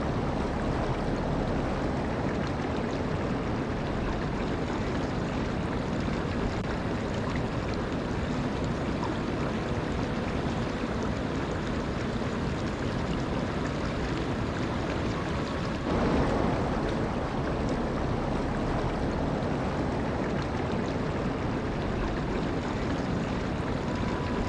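Steady rush of running water, an even noise with no breaks, briefly louder for a moment about two-thirds of the way through.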